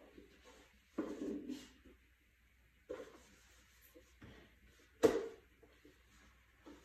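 A few scattered light knocks and rubbing sounds of handling at a kitchen counter, the loudest a sharp knock about five seconds in.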